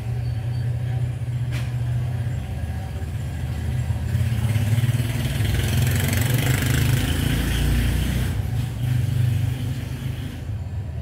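A motor vehicle's engine running close by: a steady low hum, joined by a rushing hiss that grows louder about four seconds in and fades near the end.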